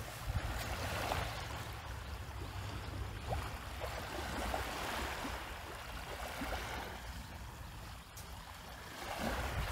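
Small waves washing against a stone seawall, swelling and fading every few seconds, with wind buffeting the microphone.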